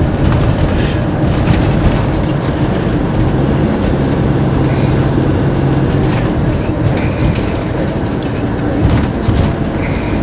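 Steady rumble of engine and road noise inside the cab of a Fiat Ducato-based motorhome driving at city speed, with a low engine hum for a couple of seconds in the middle.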